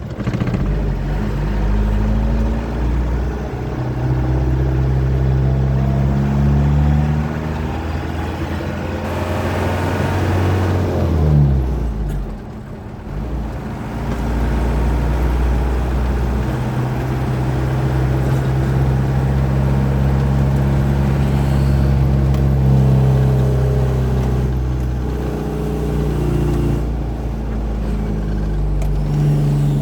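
Truck engine running under way, its note stepping up and down as the revs change, with a sweep of noise and a sharp drop in level about twelve seconds in before it picks up again.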